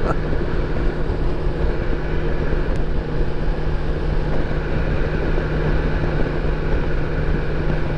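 BMW K1600 inline-six touring motorcycle cruising at steady highway speed: an even engine hum under a constant rush of wind and road noise on the bike-mounted microphone.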